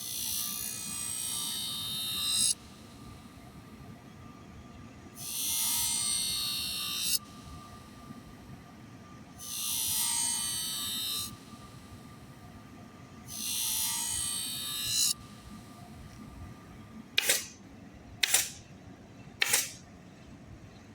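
Electric scissor sharpener motor running with a steady whine, while a scissor blade is drawn across its stone grinding wheel in four rasping passes of about two seconds each. Each pass ends sharply. Three short, quick strokes follow near the end.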